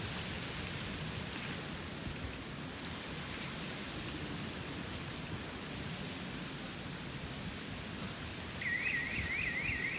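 Light rain falling, a steady hiss of noise. Near the end an alarm starts up, a quickly repeating rising electronic tone, about seven sweeps a second.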